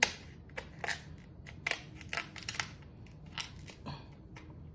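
Close-up eating of king crab legs: an irregular run of sharp crackles and clicks from shell and mouth.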